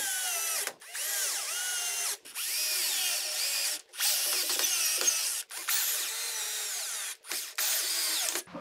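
Power drill driving 1-1/4-inch coarse-thread screws with a square-head bit into soft plywood: a high motor whine that rises and falls in pitch as it loads up, in about six runs with short stops between.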